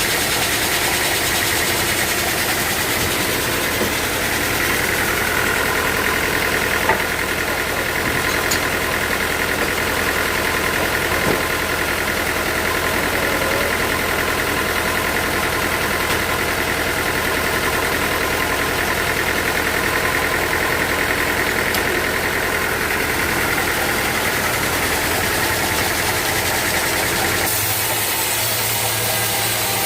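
Sawmill machinery running steadily with a constant engine-like hum and a few faint knocks; its tone shifts slightly near the end.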